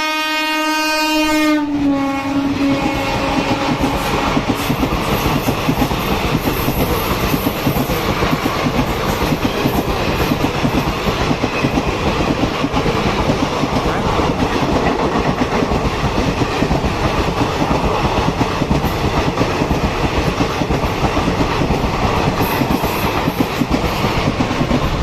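Indian Railways express passenger train running at speed: a diesel or electric locomotive horn sounds for about a second and a half at the start and dies away, then wheels rumble and clatter steadily over the rail joints with a fast clickety-clack.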